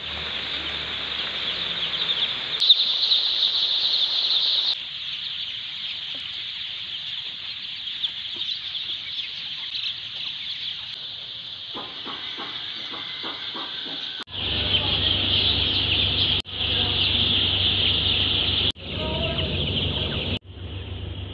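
A large flock of young chicks peeping continuously in a dense, high-pitched chorus. It cuts off and restarts at a different level several times. A low steady hum runs under it from about two-thirds of the way in.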